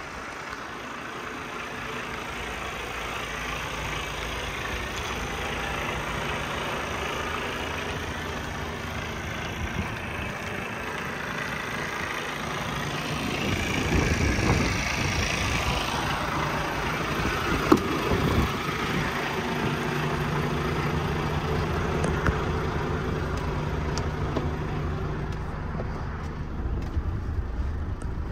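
Iveco truck's diesel engine idling steadily. It grows louder for a few seconds midway, and there is one sharp knock.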